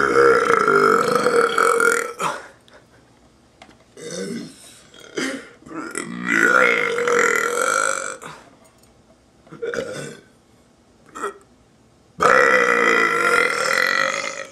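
A young man burping on and on: three long, drawn-out belches of about two seconds each, at the start, in the middle and near the end, with shorter burps between them.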